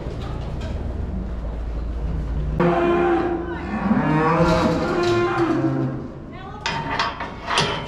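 A cow mooing: one long call of about three seconds that rises and falls in pitch, starting a few seconds in after a low rumbling noise. Near the end there are a few sharp knocks and a shorter call.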